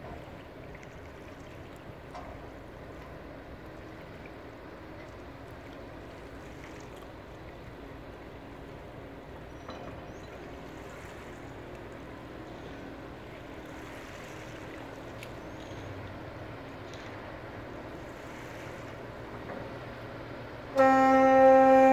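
Cargo ship's engine running with a low steady hum as the ship moves slowly past. Near the end the ship's horn sounds a loud, steady blast.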